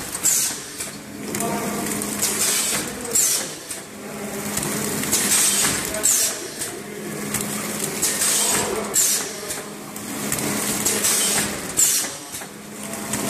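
Automatic L-type shrink-wrap sealer running: a steady machine hum, with a sharp hiss and clack about every two to three seconds as it cycles.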